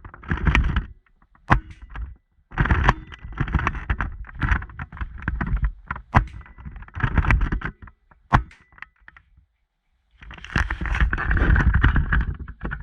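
Irregular rubbing and handling noise close to a small camera's microphone, with several sharp clicks or knocks.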